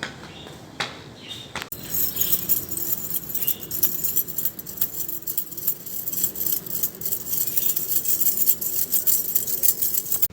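Metal jingling: a few separate clinks, then from about a second and a half in a continuous, bright, high-pitched jangling of many small metal pieces shaken together.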